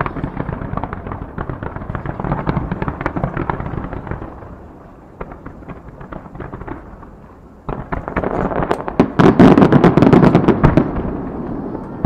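Starmine fireworks barrage: a dense, rapid run of launches and small bursts, easing off for a few seconds in the middle, then starting up again suddenly about eight seconds in, louder and denser, with the loudest bangs just before the end.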